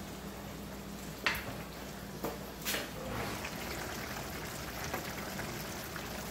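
Food sizzling in a pan, a low steady hiss, with a few sharp utensil clicks between one and three seconds in.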